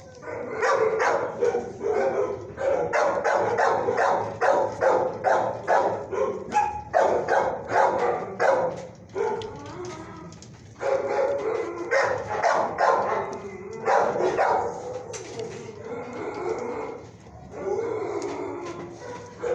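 Dog barking over and over in quick runs of about three barks a second, with a short break about ten seconds in and fainter barking near the end.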